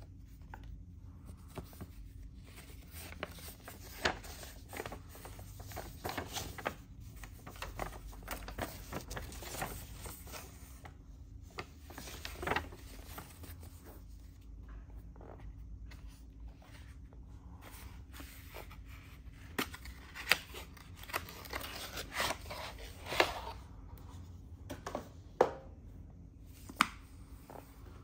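Paper and cardboard being handled by hands in rubber gloves: a card and manual rustling and boxes being shifted, with scattered sharp taps and knocks, the sharpest in the second half.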